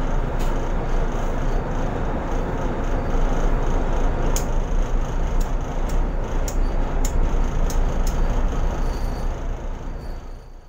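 Steady rumble of a tugboat's engine mixed with wind buffeting a phone microphone on deck, heavy in the bass, with a few sharp clicks in the second half. It fades out near the end.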